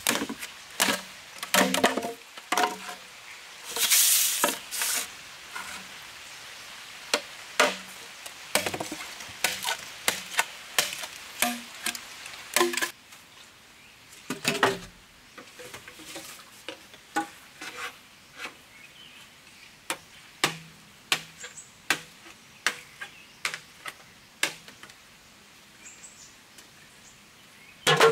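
Machete chopping and knocking on bamboo: irregular sharp strikes throughout, with a longer rasping stroke about four seconds in. The strikes are fainter in the second half.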